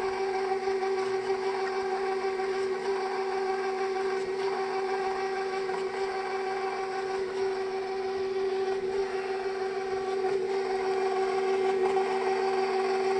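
KitchenAid bowl-lift stand mixer running on its slowest speed, its motor giving a steady whine as the flat beater works eggs into the dry ingredients.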